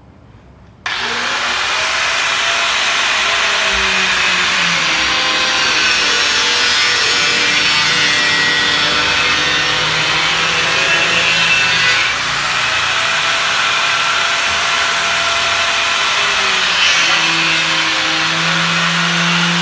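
Handheld angle grinder switched on about a second in, then running loudly as its disc cuts into a piece of fruit frozen hard as ice, the motor's pitch wavering up and down as the disc bites.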